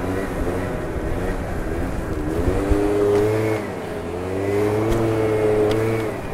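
Two-stroke scooter engine revving under throttle. Its pitch climbs, dips briefly about halfway through, climbs again and holds, then falls off near the end.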